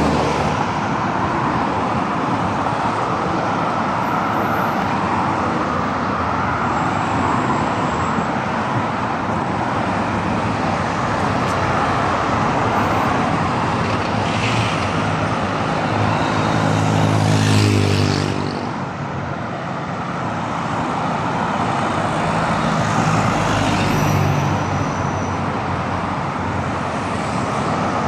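Steady traffic noise of a busy city boulevard, cars passing continuously. About seventeen seconds in, one vehicle's engine passes close and is the loudest sound, then fades.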